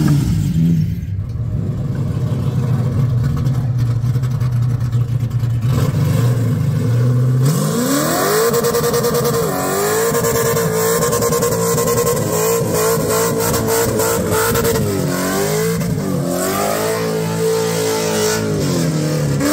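Car engine at a burnout, running steadily at low revs, then revved sharply about seven seconds in and held high, the revs wavering and dipping twice before dropping back near the end.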